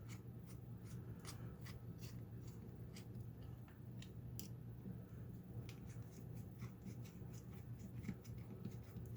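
Small irregular metal clicks and scrapes, several a second, as a lock cylinder is handled and its tailpiece removed, over a steady low hum.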